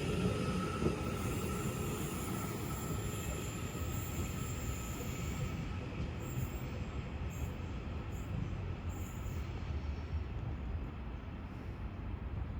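Class 331 electric multiple unit pulling out of the station, a steady rumble of wheels and running gear that slowly fades as it moves away. A faint thin high tone fades out over the first few seconds.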